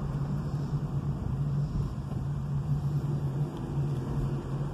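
Steady low hum of a car's engine and road noise heard from inside the cabin while driving.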